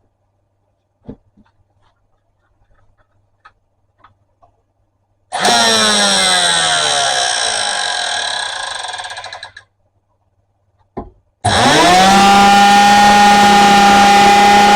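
Electric hand planer with newly replaced blades switched on with a short burst and spinning down with a falling whine over about four seconds, then started again about halfway through, its motor and cutter block running up to speed and holding a steady high whine.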